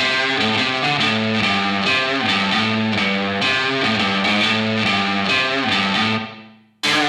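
Background music: a guitar track with distorted electric guitar that fades out near the end, then a new rock piece starts abruptly.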